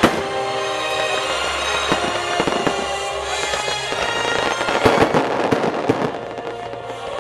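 Aerial firework shells bursting, with a sharp bang at the start and a dense run of bangs and crackles about five to six seconds in. Music plays underneath.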